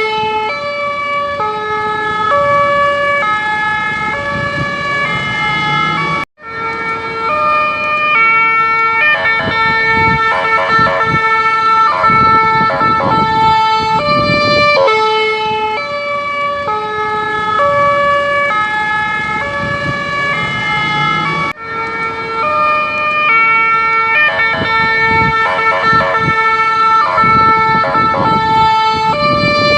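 Ambulance siren cycling through its tone variations: stepped notes jumping between several pitches, broken by stretches of fast warble. It cuts out briefly twice, about six seconds in and past twenty seconds, and the sequence starts over each time.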